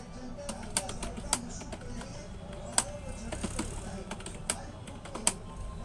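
Typing on a computer keyboard: irregular key clicks, a few sharper than the rest.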